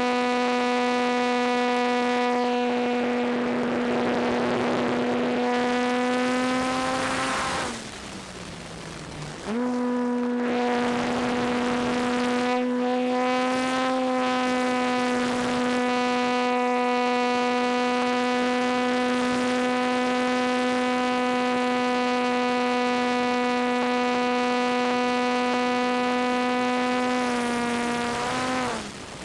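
Electric motor and propeller of a ParkZone T-28 Trojan RC plane, recorded on board: a steady high-pitched whine under power with bursts of air rushing past. About seven seconds in the throttle is cut and the pitch drops away, the power comes back about two seconds later, and near the end the whine falls away again as the throttle is cut once more.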